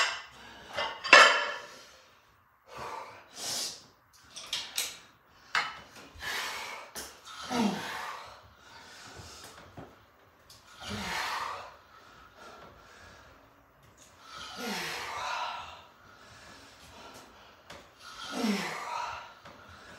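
Weight plates clanking on a plate-loaded cable column as the load is changed for a drop set, followed by a man's hard exhales and grunts, one about every three to four seconds as he works through cable biceps curls.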